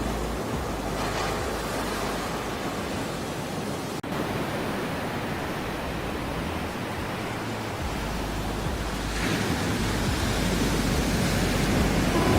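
Ocean surf: a steady wash of waves, swelling louder about nine seconds in, with a momentary break in the sound about four seconds in.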